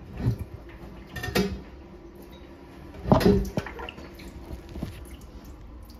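A few scattered knocks and clatters of toilet parts being handled during a repair, with some splashing of water.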